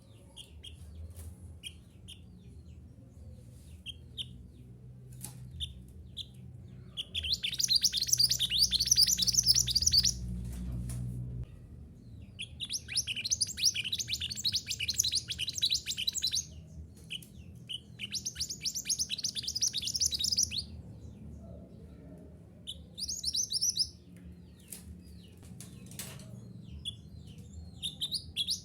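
A mountain minivet (mantenan gunung) singing in fast, chattering bouts of a few seconds each, four in all, with scattered single high chirps between them.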